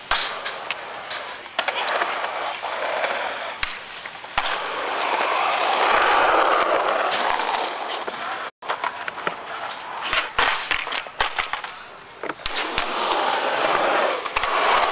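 Skateboard wheels rolling on smooth concrete, the rolling noise swelling and fading over several passes, with sharp clacks and knocks of the board on tricks and landings. The sound cuts out for an instant a little past halfway.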